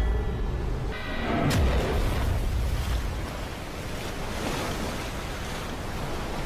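Film sound design of a storm at sea: a steady rushing roar of wind and churning water, with dramatic music underneath and a brief tonal swell about a second in.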